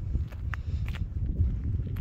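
A hiker's footsteps on a gravel and rock desert trail, roughly two to three steps a second, heard as sharp short scrapes over a steady low rumble.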